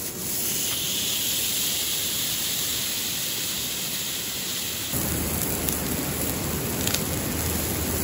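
A marinated block of meat sizzling on a hot iron griddle (Yokozawa teppan), the loud hiss starting as it is laid down. About five seconds in a deeper rumble joins it, with a few sharp crackles from the wood fire beneath.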